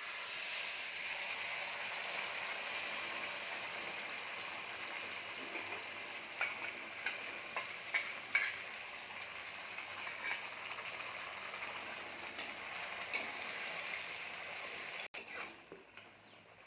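Ground masala paste sizzling as it fries in hot mustard oil in a pan, with a few short clinks of the spoon stirring it. The sizzle starts suddenly and drops to a much fainter level near the end.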